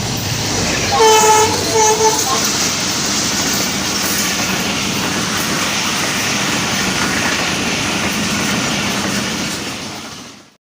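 Train running past, its locomotive horn sounding two short blasts about a second in, over a steady rush of wheels on rail. The sound fades out near the end.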